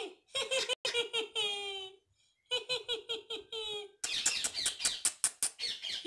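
Indian ringneck parakeet calling in runs of short, quick repeated notes, each run ending in a longer, slightly falling note, then a denser, harsher rapid chatter from about four seconds in.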